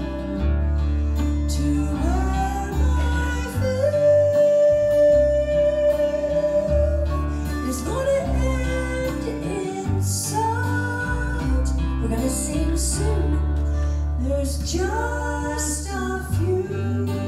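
Live acoustic gospel band: a woman's lead voice with harmony singing over strummed acoustic guitar, mandolin and upright bass, holding one long note about four seconds in.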